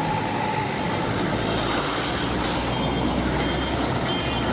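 A steady vehicle engine rumble with a low hum, even in level throughout.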